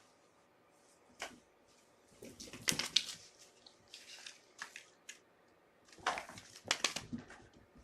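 Kittens playing with a toy on the floor: irregular bursts of scuffling, scraping and knocking, loudest around three seconds in and again around six to seven seconds.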